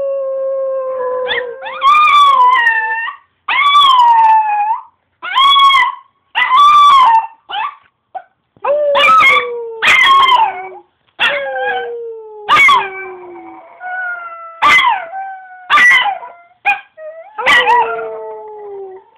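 Chihuahua howling: a run of about a dozen high-pitched howls, each a second or so long, several sliding down in pitch, broken by short yips.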